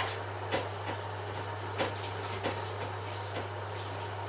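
Water running from a kitchen tap as tenderstem broccoli is washed, with a few light knocks and a steady low hum underneath.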